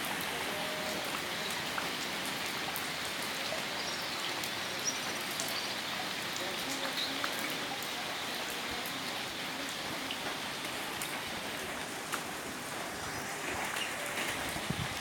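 Steady heavy rain falling, an even hiss with scattered drops ticking through it.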